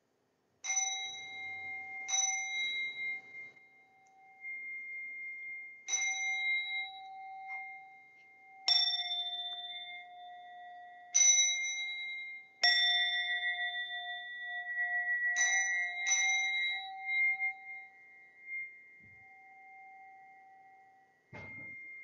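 Standing bowl bells struck about eight times at uneven intervals, each strike ringing on and fading slowly. Two bells of slightly different pitch overlap, marking bows at the close of a Zen service. A short sharp knock sounds near the end.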